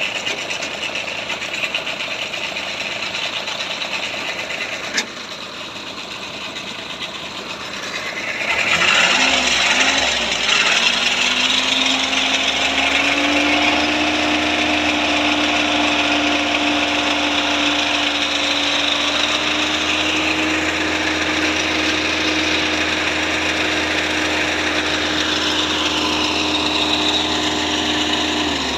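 Truck engine running under load during a recovery pull. About eight seconds in it revs up, its pitch climbing over a few seconds, then holds high and steady with a loud rough noise over it.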